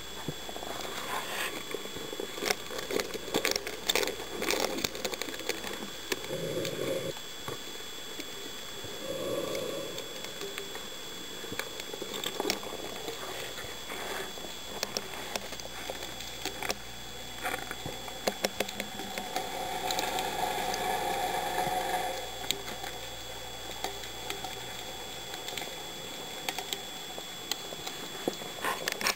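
Underwater sound through a camera's waterproof housing: scattered sharp clicks and crackling, with a few short muffled tones, the longest about two-thirds of the way in.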